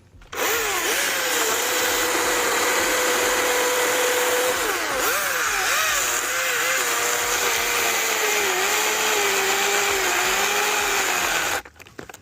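Husqvarna 225i battery chainsaw running at full speed and cutting into a tree: the electric motor's steady whine comes on at once, drops and wavers in pitch as the chain bites into the wood, and stops abruptly near the end.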